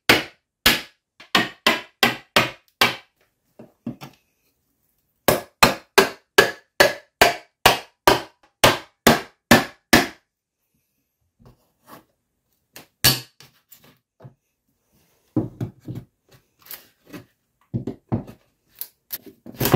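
Hammer striking a plastic pry wedge driven in behind a painted wooden window casing to pry the trim off the wall. There are two runs of quick blows, about three a second, with a short pause between them, then a few scattered knocks as the casing works loose.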